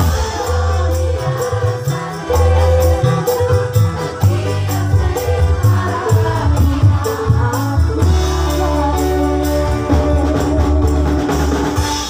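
Live band playing a Javanese song: a woman singing over electric guitars, bass and drums, with a steady beat.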